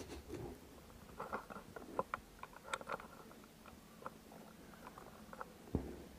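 Faint, scattered light clicks and knocks of a motorbike drive chain and hand tools being handled, with a few quick clusters early on and one louder knock near the end.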